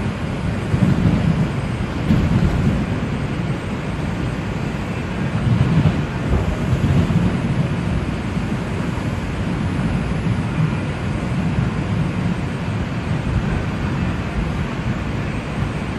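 Steady low rumble of an R142 subway car running along the track, heard from inside the car.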